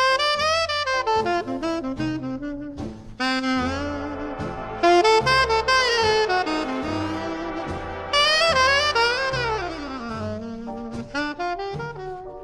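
Swing-era jazz instrumental break: a solo horn plays the melody with sliding, bending notes over a bass line.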